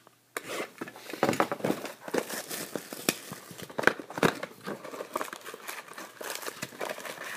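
Clear plastic shrink wrap being torn and crumpled off a box of trading cards: a fast, irregular crinkling crackle that starts about a third of a second in.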